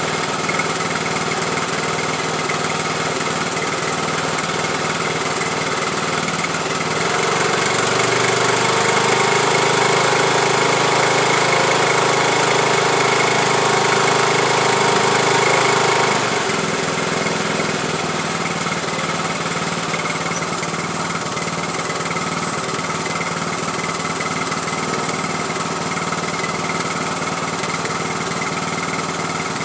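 Craftsman YT3000 lawn tractor engine running steadily. It grows louder and higher for about ten seconds, from around seven seconds in, then settles back to its earlier note.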